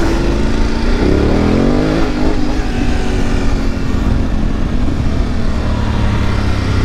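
Adventure motorcycle engine pulling away, its revs rising for about a second before settling into a steady drone as the bike rides on.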